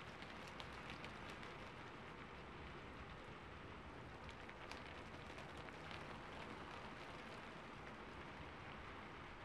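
Rain-on-rooftop ambience track: a quiet, steady hiss of rain with scattered sharp drop ticks.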